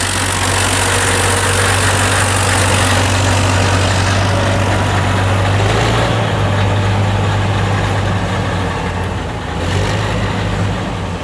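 Six-cylinder turbo diesel engine of a 1988 Oshkosh WT2206 dump truck running steadily, its tone shifting slightly about six seconds in.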